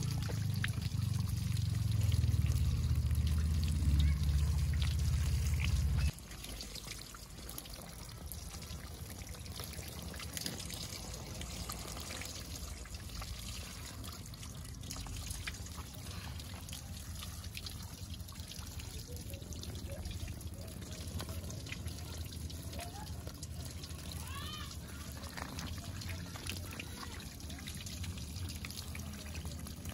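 Thin stream of water from a garden hose nozzle pouring and trickling onto a plastic tarp and over a baby otter. A low rumble dominates the first six seconds and cuts off suddenly. A few short high chirps rise and fall about three-quarters of the way through.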